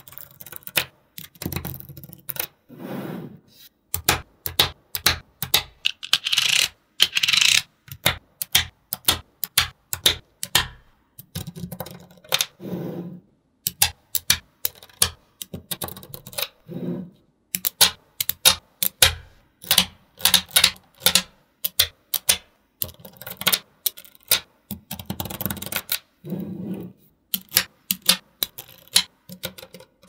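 Small magnetic balls clicking and snapping together in quick, irregular clicks as they are set into place, with a few brief rustling stretches of balls rubbing and rolling against each other.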